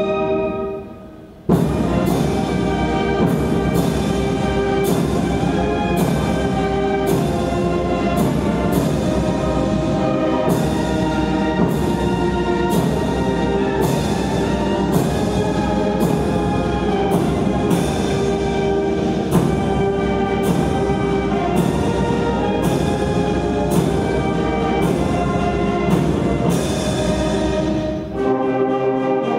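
Brass band music with timpani and regular percussion strokes under slow held brass chords. One piece fades out just after the start, a new piece begins about a second and a half in, and another starts again near the end.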